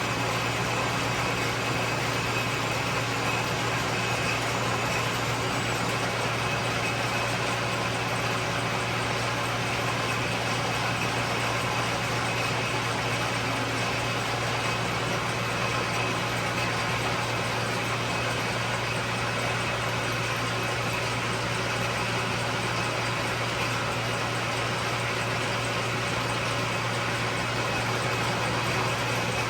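1943 South Bend lathe running steadily under power while cutting a deep internal thread: a constant motor hum with an even whir from the drive.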